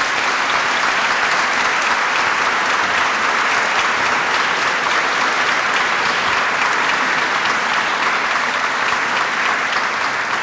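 Large audience applauding steadily, a dense, even clapping.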